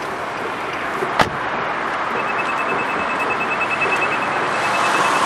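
A car door shuts with a single thump, then the 2013 Nissan Note's keyless-entry warning sounds a rapid run of short high beeps for about three seconds, signalling that the key is not inside the car.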